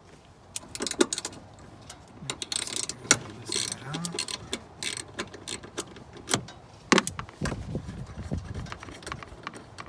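Hand tools working the bolts and clamps of a car's stock intake airbox: irregular ratchet-like clicking and metal clinks, with a few sharper knocks about a second in, around three seconds and near seven seconds.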